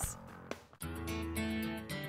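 Background music with guitar starts just under a second in, after a brief pause, and plays steadily.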